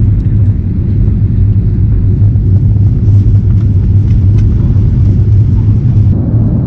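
Jet airliner cabin noise in flight: a loud, steady low rumble of the engines and airflow, heavy enough to drown out voices.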